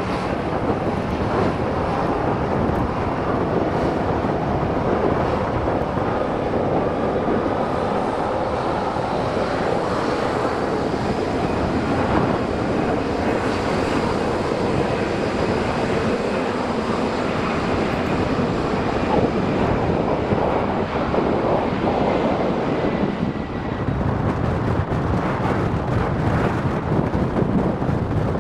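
Boeing 767-300F freighter taking off, its twin jet engines at takeoff power in a loud, steady jet roar, with a faint high whine sliding slowly lower through the middle.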